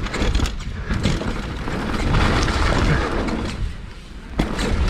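A Scott Gambler downhill mountain bike rattles and clatters over a rough dirt trail at speed, with wind rushing over the helmet camera's microphone. There is a sharp knock about four and a half seconds in.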